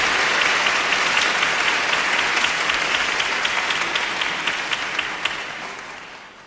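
Audience applauding: a dense patter of many hands clapping, fading away over the last second or so.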